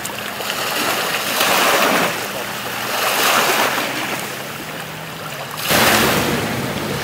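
Waves washing in at the shoreline, swelling twice, with a faint steady low hum beneath. About five and a half seconds in the sound changes abruptly to a jet ski running at speed with the rush of its spray.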